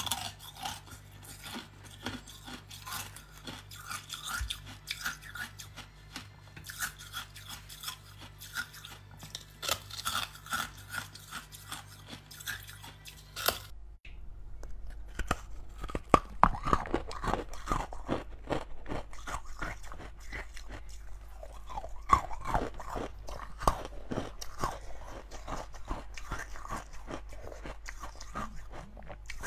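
Frost-covered ice being bitten and chewed, with repeated crisp crunches and cracks. About halfway through, a cut brings a louder, denser run of crunching.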